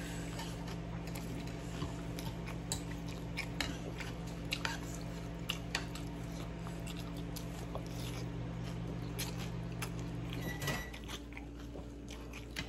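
A person eating noodle soup: slurping noodles, chewing with wet mouth smacks, and spoon clicks against the bowl. A steady low hum underneath stops about ten and a half seconds in.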